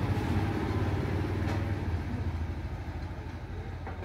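A motorcycle engine running steadily, growing gradually fainter as it moves away.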